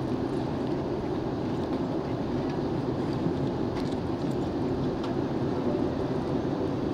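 Steady cabin roar of an Airbus A321 in flight, heard from a window seat: a constant low rush of engine and airflow noise with no change in level.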